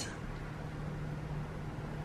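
Quiet room tone with a steady low hum.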